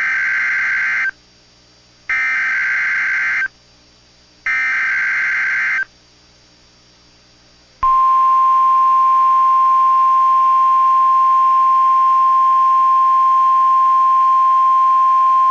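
NOAA Weather Radio SAME header: three identical screeching data bursts, each about a second long and a second apart. About eight seconds in, the steady single-pitched 1050 Hz warning alarm tone starts. Together they are the coded start of an emergency alert broadcast, here a tornado watch.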